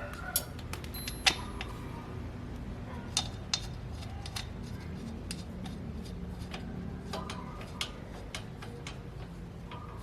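Irregular sharp clicks and light knocks, a few louder ones in the first four seconds, over a low steady hum.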